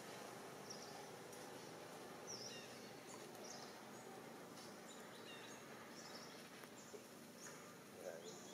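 Faint, steady outdoor background noise with a few short, high chirps scattered through it.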